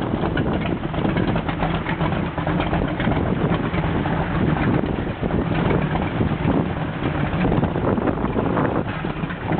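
Carrera SS8M 27-foot powerboat's engine idling steadily.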